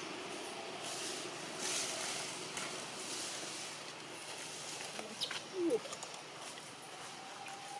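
Quiet outdoor ambience with a few faint crackles, and one short squeak that rises then falls in pitch a little past halfway.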